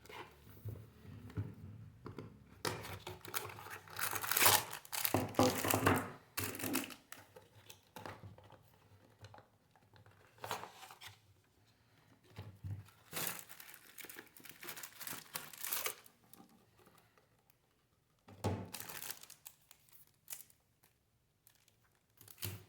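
Packaging being unwrapped by hand: irregular crinkling and tearing rustles that come in bursts with quiet gaps between them.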